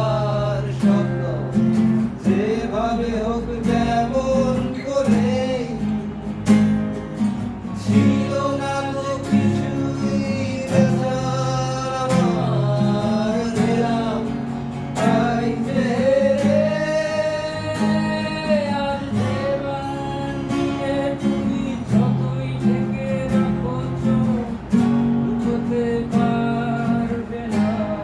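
Tayste TS-35 acoustic guitar strummed in steady changing chords, with a singing voice carrying a melody over it.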